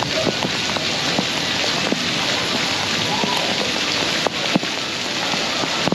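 Heavy rain falling on paved ground, a steady hiss with many small drop taps scattered through it.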